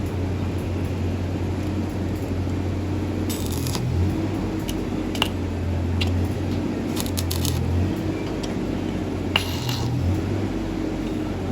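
Metal tools clinking and tapping over a steady low hum, with a few short hissing bursts, about three over the span.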